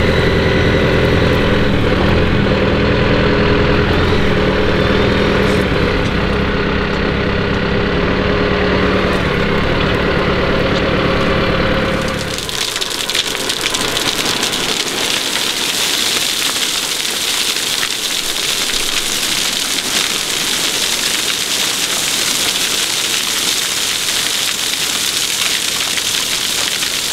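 Tractor engine running with a steady hum for about the first twelve seconds, then an abrupt change to a loud, steady rushing hiss of gravel and stones sliding off the tipped-up trailer bed and pouring out.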